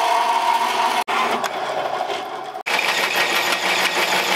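G-Force horizontal metal-cutting bandsaw running with a steady whine for about the first second. After a short, quieter clip, a cordless drill bores into a metal tube clamped in a vise with a dense, steady grinding noise.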